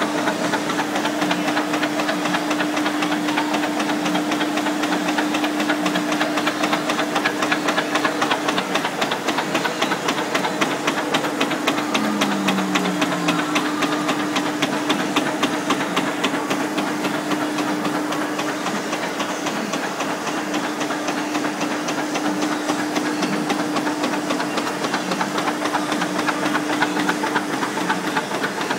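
Arsoma SFD 3 printing press running with printing on and its four-head punching unit working: a fast, even clatter over a steady hum.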